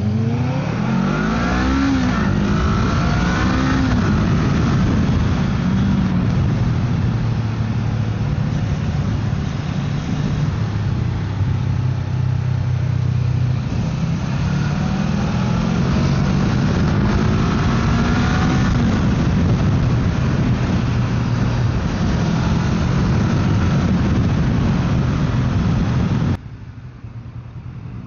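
Motorcycle engine under way with wind noise. It accelerates with a rising engine note near the start and again around the middle, holding a steady note between. The sound drops away suddenly near the end.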